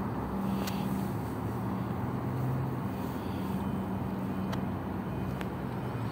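CTrain light-rail car at a platform with its equipment humming steadily and low, along with a few sharp clicks.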